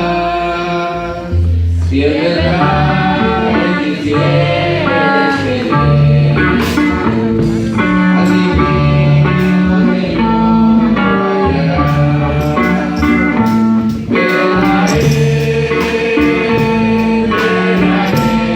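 A church men's group's music: a gospel hymn on guitar and bass with singing.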